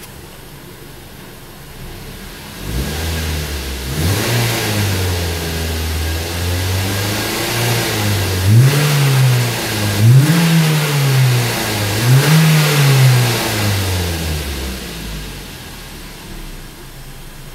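2008 Ford Focus 2.0-litre four-cylinder engine idling and then being revved. The revs rise a few seconds in and hold, then it is blipped up and back down three times to around 3000 rpm before settling to idle near the end.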